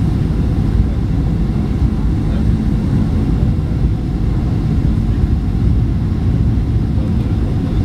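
Steady low rumble of engine and airflow noise inside a Boeing 737-800's cabin on final approach, heard at a window seat over the wing, its CFM56-7B turbofans running at low approach thrust.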